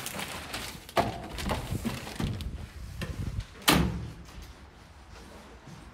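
Doors of a building entrance being opened and swinging shut: two sharp thuds, the first about a second in and a louder one a little past halfway, with smaller knocks between them.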